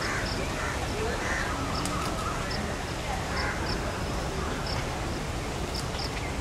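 Crows cawing every second or two over steady outdoor background noise, with short high chirps in between.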